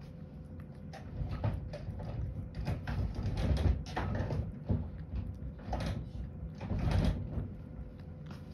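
Cat eating from a ceramic bowl: quick, irregular chewing and lapping clicks, busiest through the middle few seconds.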